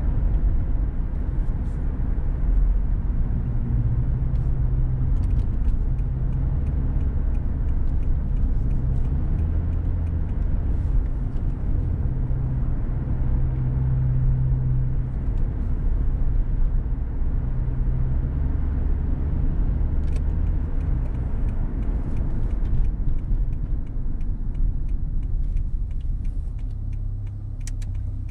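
Car driving on a road: a steady low rumble of engine and tyre noise, with faint scattered ticks.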